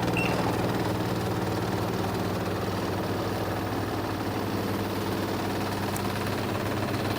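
Washing machine drum spinning in its spin cycle: a steady mechanical hum with vibration. A short high beep sounds just after the start, as from the machine's control panel.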